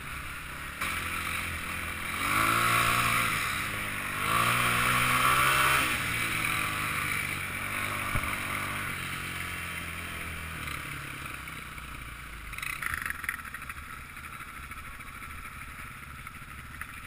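Off-road trail motorbike engine revving hard twice in quick succession, its pitch rising and falling as the rider accelerates, then easing off to a lower, steadier run as the bike slows. A brief rattle comes about thirteen seconds in.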